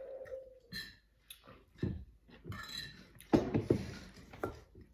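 Metal forks clinking and scraping against ceramic plates and bowls at a dinner table, in scattered short knocks, with a cluster of louder clinks about three and a half seconds in.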